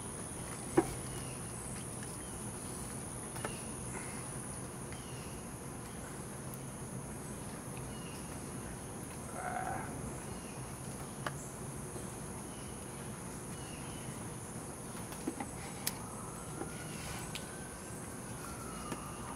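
Steady high-pitched chirring of crickets and other insects. Over it come scattered light clicks and knocks from a stir stick and cups as two-part epoxy paint is mixed, with a sharp click about a second in.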